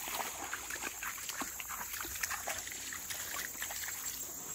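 A dog wading in a shallow creek pool, its paws making light, irregular splashes and sloshes in the water. A steady high insect drone runs underneath.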